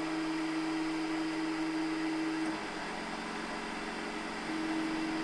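WDS-650 BGA rework machine running with a steady hum and a held tone; the sound shifts about halfway through, the tone dropping out, then coming back near the end.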